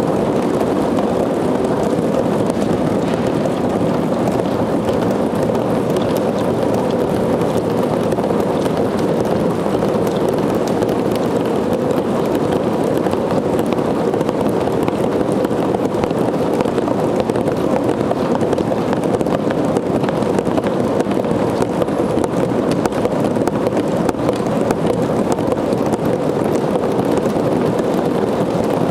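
Sound sculpture of hundreds of cardboard boxes, each with a small motor swinging a cotton ball on a wire against the cardboard, all running together in a steady, dense buzzing made of countless rapid light taps.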